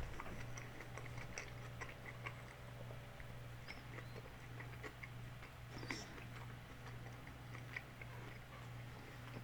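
A person chewing chicken flautas, close to the microphone: faint, irregular wet mouth clicks and smacks over a steady low hum.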